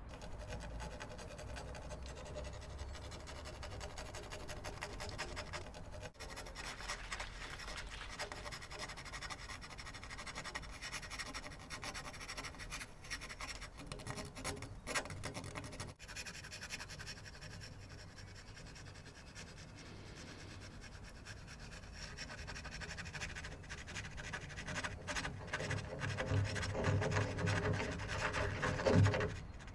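Scratchy crackling noise dense with small clicks, growing louder over the last few seconds.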